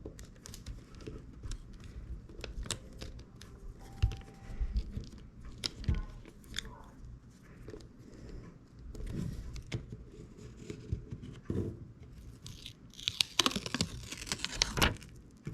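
Hand handling of a phone being reassembled: irregular small plastic clicks and taps with crinkling and rustling, busier for a couple of seconds near the end.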